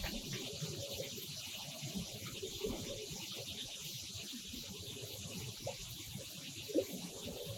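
Quiet open-air background on a fishing boat: a faint steady hiss over a low uneven rumble, with a few soft knocks, the strongest near the end.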